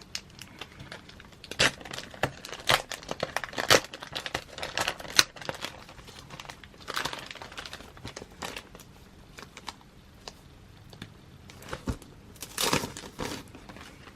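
Plastic wrapping being crinkled and pulled off an album package: irregular sharp crackles and rustles, with longer tearing rustles about halfway through and again near the end.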